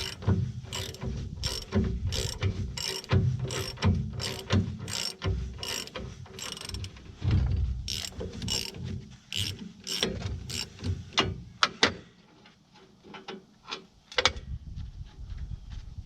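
Ratchet wrench clicking in quick repeated strokes, about two a second, as bolts are worked off. After about eleven seconds the strokes turn sparser and fainter.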